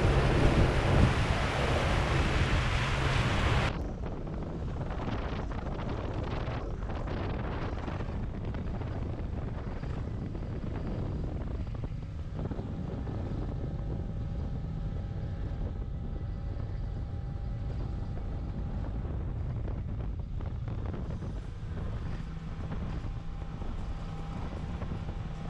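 Wind buffeting the microphone on a small fishing boat, with the low, steady drone of the boat's motor underneath. The sound drops suddenly to a quieter, steadier level about four seconds in.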